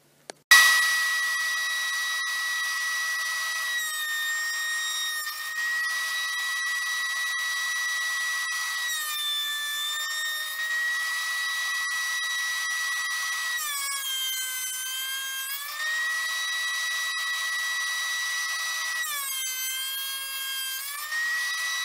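Benchtop thickness planer running with a high, steady whine that starts abruptly about half a second in. Its pitch sags four times, for a second or two each, as the cutterhead takes a light pass through the wood and loads the motor.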